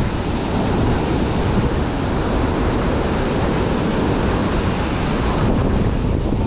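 Steady rush of ocean surf breaking on a sandy beach, with wind buffeting the microphone.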